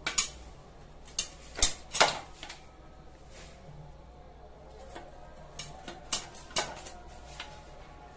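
Scattered clinks and knocks against a steel bowl as a cleaned duck is handled over it, several sharp hits with a short metallic ring, the loudest pair about two seconds in and another cluster near six seconds.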